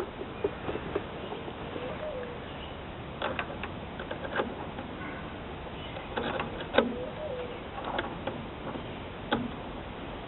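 Scattered hand-tool clicks and knocks on metal while an outer axle boot clamp is worked into place and tightened, coming in small clusters every second or two. A faint wavering tone rises and falls twice, about three and seven seconds in.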